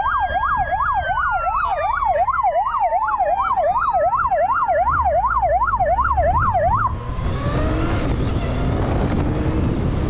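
Police motorcycle siren on a Kawasaki GTR1400 sounding a fast warble, about two and a half sweeps a second, with a slower wailing tone gliding beneath it. The siren cuts off about seven seconds in, leaving wind rushing over the microphone and a low engine rumble.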